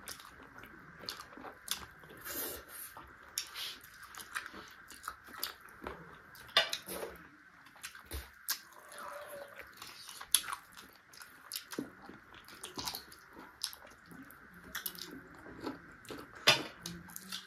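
Close-miked eating of chicken feet: biting and chewing with irregular wet smacks and sharp clicks, a few of them louder.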